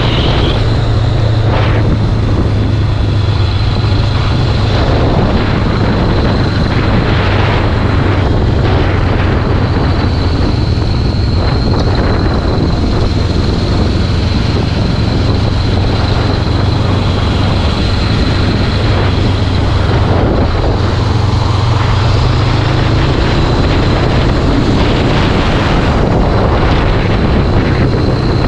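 Honda CBR500R's parallel-twin engine running steadily under way, with heavy wind rushing over the microphone.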